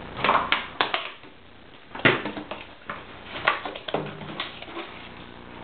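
A Labrador puppy chewing and knocking an empty plastic soda bottle about on a tiled floor: crackling plastic and irregular hollow knocks of the bottle against the tiles, the loudest knock about two seconds in.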